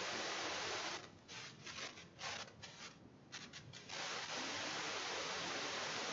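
Steady background hiss of the recording, with no speech. About a second in it breaks up, cutting out and back in several times, and runs steady again from about four seconds in.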